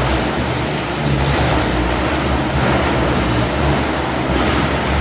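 Two radio-controlled helicopters flying 3D aerobatics: a loud, steady rushing noise from their rotor blades, with low pitch shifts as the rotors are loaded and unloaded, in a large hall.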